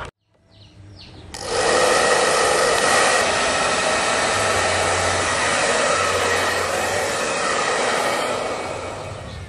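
Handheld electric hair dryer switched on: it spins up over about a second, then runs steadily, blowing a loud rush of air with a steady whine, easing off a little near the end.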